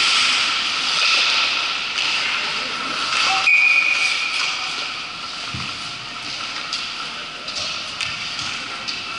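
Ice hockey play on an indoor rink: a steady hiss of skate blades scraping the ice, with scattered clicks of sticks and puck in the second half and a brief high tone about three and a half seconds in.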